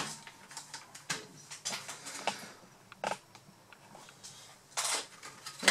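Irregular small plastic clicks and short scrapes as a plastic pry tool works at the clips of a Lenovo B50-80 laptop's palmrest.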